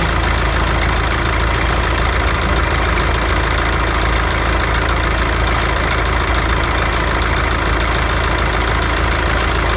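SsangYong Actyon engine idling steadily, with the accessory belt drive turning and a faint fine ticking over the engine sound. The extraneous noise from the alternator belt area comes and goes; it first seemed like the tensioner pulley but turned out to be a failing alternator overrunning clutch pulley.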